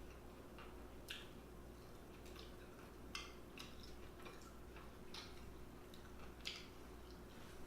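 Faint, close-up eating sounds: about a dozen soft, wet mouth clicks and smacks of chewing, spaced irregularly. A faint steady hum lies underneath.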